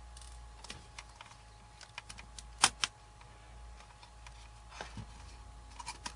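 Scattered light clicks and taps of tools and fingers on the plastic keyboard and case of a Dell Latitude E4310 laptop as it is worked apart. Two sharper clicks come close together a little before halfway.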